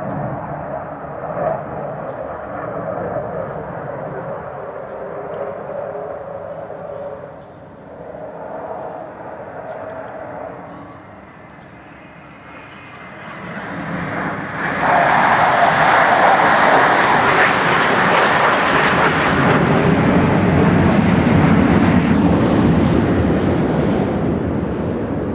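Sukhoi Su-35 fighter jet flying low overhead on afterburner. Distant jet noise swells about fourteen seconds in to a loud roar, drops in pitch as the jet passes, and eases slightly near the end.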